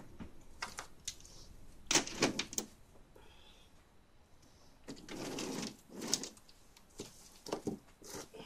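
Scattered knocks, clicks and rustles of small objects being handled on a hard floor, with a louder clatter about two seconds in and a longer scraping rustle about five seconds in.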